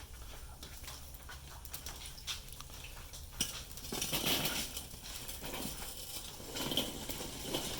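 Scattered clicks and scraping from handling a charcoal kettle grill's hot grate and coals, with two longer rustling, scraping stretches about four seconds in and near the end.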